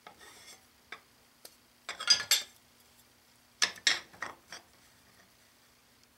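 Speed square being handled against a tape-wrapped pipe in a steel bench vise: a short scrape, a couple of light clicks, then two clusters of sharp clinks and knocks, about two seconds in and again from about three and a half to four and a half seconds in, as the square is turned round and set back down.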